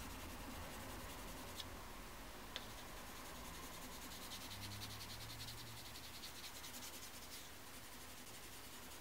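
Soft 4B graphite pencil scribbling faintly across paper, with two small ticks about one and a half and two and a half seconds in.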